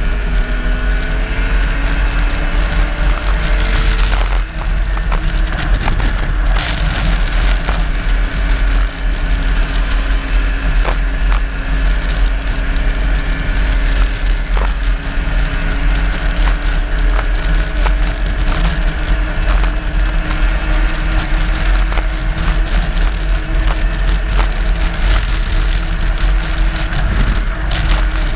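Race vehicle's engine running under way, heard from an onboard camera with heavy wind rumble on the microphone. The engine note shifts in the first few seconds, then holds fairly steady, with scattered sharp clicks.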